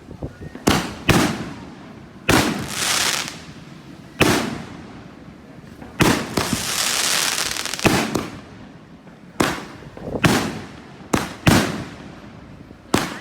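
Aerial fireworks bursting overhead: about a dozen sharp bangs at irregular intervals. After the bangs about two seconds in and six seconds in comes a longer hiss lasting a second or so.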